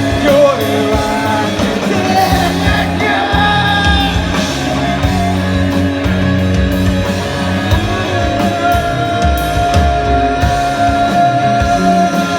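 A rock band playing the closing part of a song with electric guitar, with a long held high note through the last few seconds.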